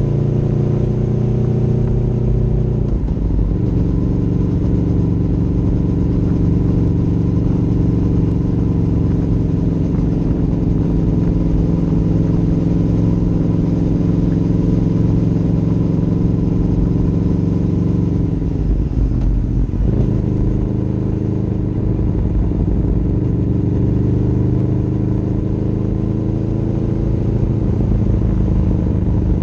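Motorcycle engine running at town speed, with low wind rumble on the microphone. The engine note drops sharply at a gear change about three seconds in, sags with the throttle off about two-thirds of the way through, then climbs again as it pulls away.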